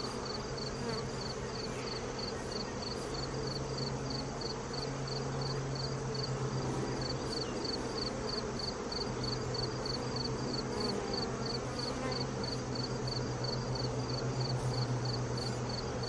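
Swarm of honeybees buzzing in a steady hum around an open hive as they are brushed off a honey frame. Over it runs a high, even insect chirping, about three pulses a second.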